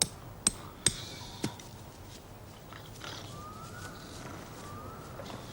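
Four sharp smacks in quick succession, about half a second apart, then a man snoring: slow breaths, each with a faint rising whistle.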